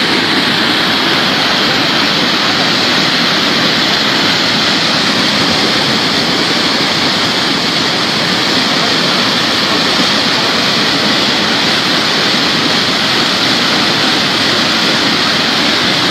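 Steady loud rushing of a muddy flash-flood torrent surging down a river channel.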